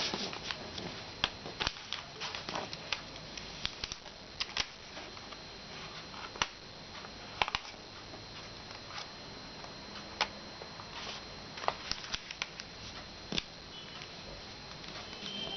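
A sheet of paper being folded and creased by hand: irregular crinkles, rustles and sharp creasing clicks, over a faint steady high-pitched whine.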